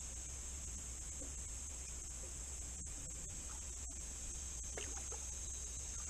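Steady, high-pitched chorus of insects, with a low steady rumble underneath and a couple of faint clicks about three and four seconds in.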